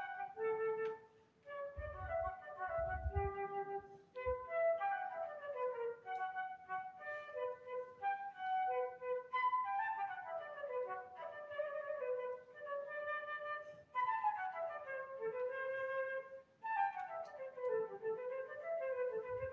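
Solo concert flute playing a melody with quick runs, short breaks for breath and falling passages near the end.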